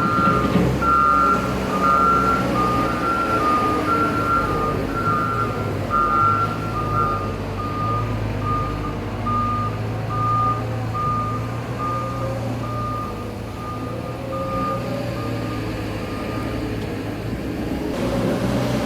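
Reversing alarms of working machinery beeping about once a second over a running diesel-type engine's steady low hum. Two beepers at slightly different pitches sound together at first; the higher one stops about seven seconds in, and the lower keeps on until near the end.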